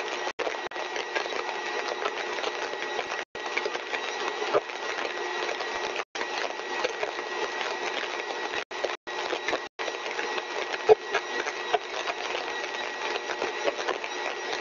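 A single-stage rotor-and-stator lab compressor rig running steadily at full design speed. It gives a continuous whirring noise with a thin steady high whine, and the sound cuts out for an instant several times.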